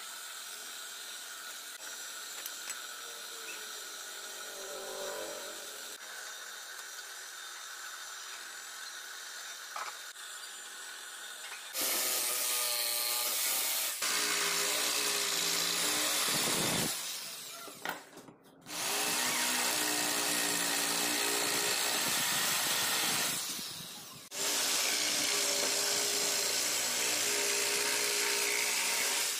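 A drill press runs steadily at a moderate level as its bit bores into a small wood block. About twelve seconds in, an electric jigsaw starts cutting through a wooden batten, much louder, in several runs with short stops between.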